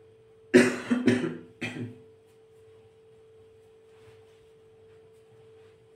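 A man coughs three times in quick succession, starting about half a second in, over a faint steady hum.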